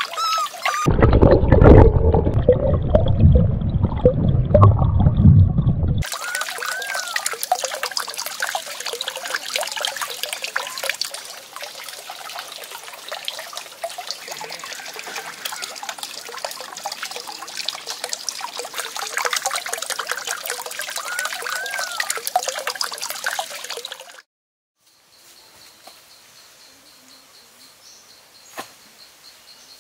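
Water pouring from a clay pot and splashing into a shallow pond, followed by a long steady trickle of water with a few short chirps. Near the end the sound drops to quiet ambience with a high steady buzz and a single click.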